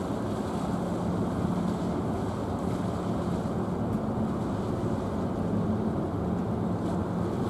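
Red Funnel car ferry Red Falcon's engines running steadily as it comes alongside the berth, a low hum with a steady drone. Wind buffets the microphone.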